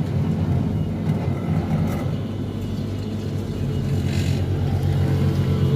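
Milkshake vending machine running, a loud, steady low mechanical hum from its motor.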